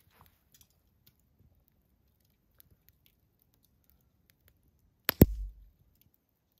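Campfire crackling faintly with scattered small ticks and pops; about five seconds in, two sharp loud clicks come close together, followed by a short dull thump.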